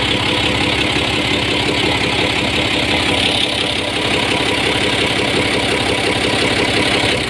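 Nissan Kondor truck's FE-series diesel engine running at a steady idle with a fast, even knock. The engine lacks power and is hard to start, the mechanic says.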